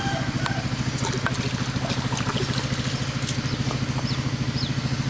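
A small engine running steadily with a fast, even throb, and water being poured and trickling near the basin.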